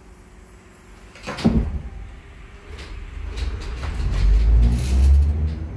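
Inside an H5 HÉV suburban train car: a single sharp bang about a second and a half in, typical of the car's doors shutting, then the train's low rumble and motor hum growing louder over the next few seconds.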